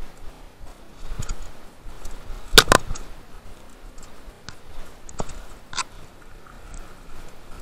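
Downhill mountain bike clicking and knocking over rough trail: scattered sharp clicks and rattles, loudest a quick double knock about two and a half seconds in.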